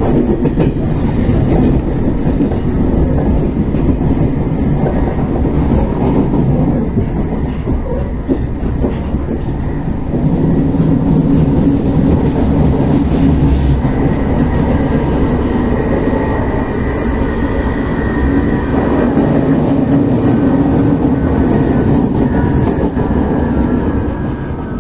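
Inside a running RER B commuter train: a steady rumble of wheels and running gear with rail clickety-clack. From about halfway through, a faint high whine joins it and slowly drops in pitch.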